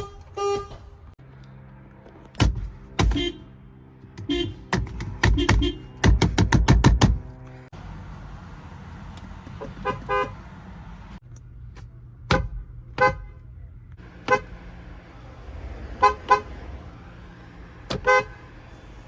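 Car horns honked on one car after another: short single and double toots at differing pitches. The loudest part is a quick string of about eight taps around six seconds in.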